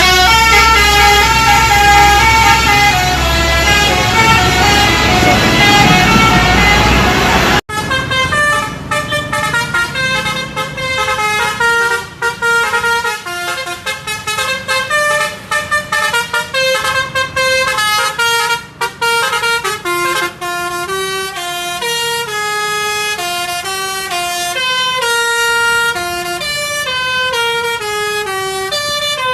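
Bus 'telolet' musical air horn playing a tune of stepped notes, with engine rumble underneath for the first several seconds. After an abrupt cut about eight seconds in, a horn plays a quicker melody of short notes.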